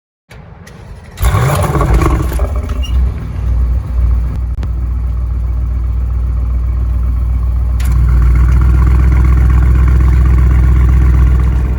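Audi RS6 C8's twin-turbo V8 starting, flaring loudly about a second in, then settling into a steady low idle rumble that deepens a little near the end.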